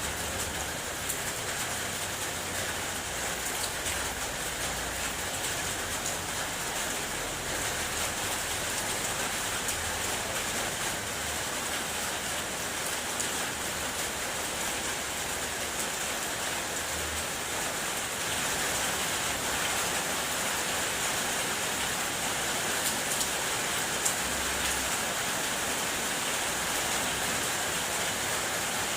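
Steady rain drumming on a car's roof and body, many small drop impacts over an even hiss.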